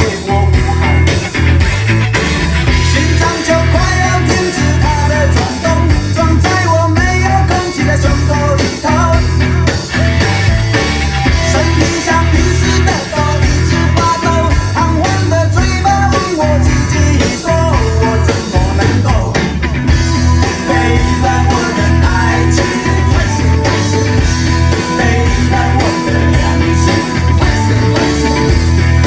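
A song with singing and guitar over a steady beat with heavy bass, played through a car's Dynaudio speaker system driven by an RNS510 head unit.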